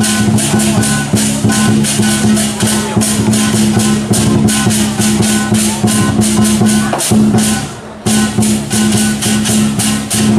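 Lion dance percussion: cymbals clashing in a fast, even beat, about four strikes a second, over the drum. The playing drops away briefly about seven seconds in, then starts again a second later.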